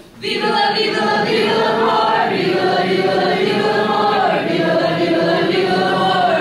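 Live singing by performers on stage, sustained sung notes that come in right after a brief gap at the very start.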